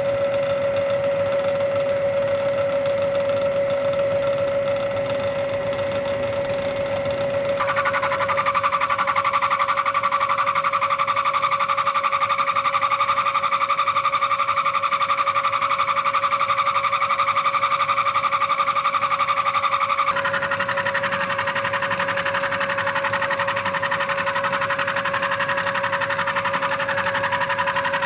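A vertical milling machine's end mill, dull and with long stick-out, side-cuts a cast iron straight edge while the spindle runs with a steady whine. About eight seconds in the cut begins to sing with a high, steady tone of chatter. That tone turns rougher and spreads wider around twenty seconds in.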